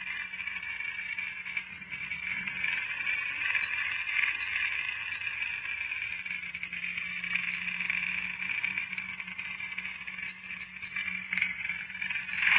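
Toy lightsaber's electronic hum and swing sound effects playing through its small built-in speaker, thin and buzzy with no deep bass, swelling and fading as it moves. Near the end it ends in a louder burst that cuts off suddenly.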